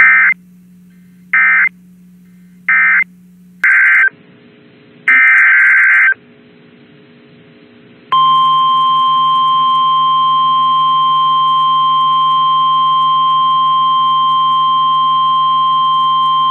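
Emergency Alert System tones: a run of short, harsh data bursts (the SAME digital code sent between alerts) in the first six seconds, then a steady single-pitch alert tone that starts about eight seconds in and holds until the end.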